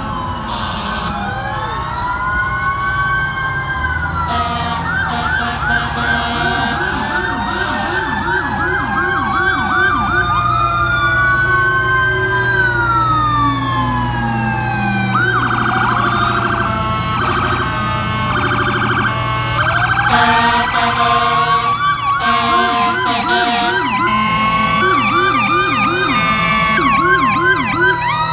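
Several fire truck sirens sounding at once as the trucks pass in procession. Slow rising-and-falling wails overlap fast repeated yelps, with steady horn blasts cutting in near the middle and over the low rumble of the trucks' engines.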